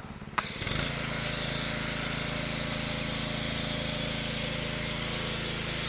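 Pressure washer running a foam cannon: a loud, steady hiss of spray starts just after the beginning, with the washer's motor and pump humming steadily beneath it once they kick in a moment later, and both cut off suddenly at the end.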